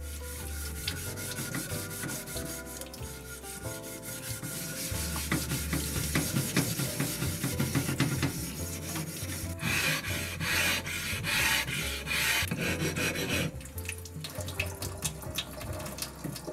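Atoma 400 diamond flattening plate rubbed rapidly back and forth over wet Naniwa Chosera whetstones, a gritty scraping that flattens the stones. Background music plays underneath.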